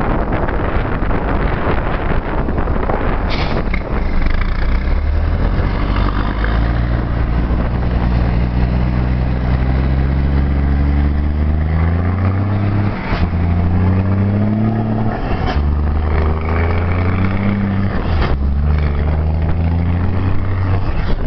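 A motor vehicle's engine accelerating, its pitch climbing in steps with short breaks about every two to three seconds as it shifts up through the gears, over heavy wind noise.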